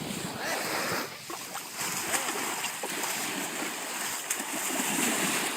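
Sea surf washing in, with water splashing.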